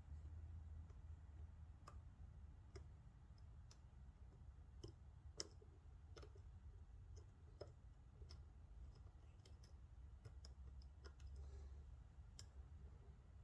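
Faint, irregular small metallic clicks and ticks of a lock pick probing the pins of a Lockwood MT5 (Mul-T-Lock MT5+) pin-tumbler cylinder, over a faint low hum.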